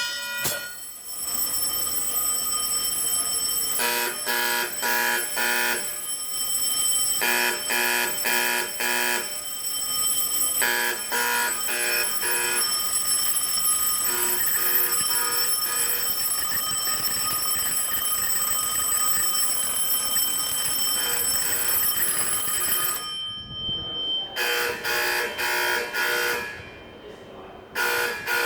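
A click as the pull rod fire alarm station is pulled. Then Autocall Vibratone fire alarm horns sound, pulsing in repeated groups of four over a steady buzzing tone: the 4-4-4-4 cadence marching code. The sound drops out briefly twice near the end.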